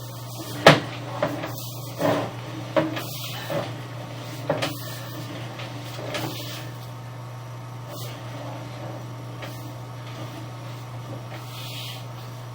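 Sewer inspection camera rig during a drain line inspection: a steady electrical hum with a series of irregular knocks and clunks as the camera is worked through the pipe. The loudest knock comes about a second in, and they thin out after about six seconds.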